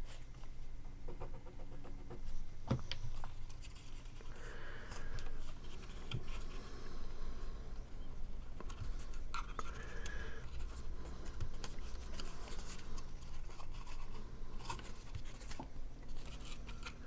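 Cardstock pieces being handled and folded flat: scattered light rustles, scrapes and clicks of paper, over a faint steady low hum.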